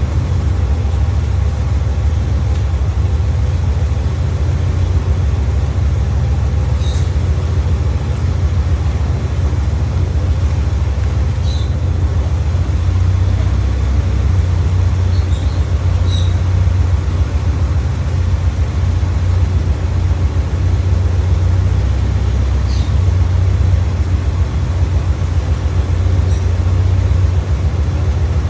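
Toyota Starlet KP61's four-cylinder engine running steadily after a long lay-up, a continuous low hum with a few faint ticks above it.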